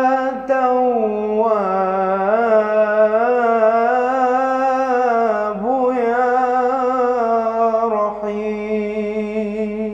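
A man singing an ibtihal, an Islamic devotional supplication, unaccompanied. He holds long melismatic notes with a wavering vibrato, breaking briefly between phrases.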